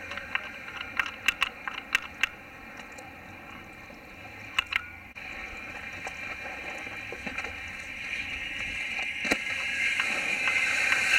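Wakeboard spray hissing across the lake water, swelling louder near the end as the rider carves hard close by. A scatter of sharp clicks sounds in the first couple of seconds and again around the middle.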